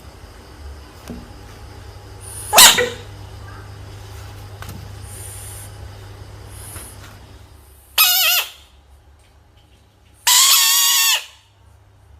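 A frog's distress calls: one short, sharp squeak, then a brief high scream and a longer scream held for about a second.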